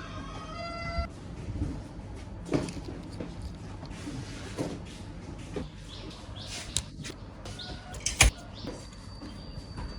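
Plastic clicks and clacks from a Transformers toy figure being handled and its parts moved, the loudest snap about eight seconds in. A short run of stepped electronic tones plays in the first second, and a thin steady high tone begins near the end.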